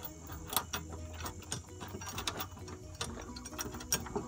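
Hand socket ratchet clicking in short, irregular runs as it is swung back and forth to turn a bolt.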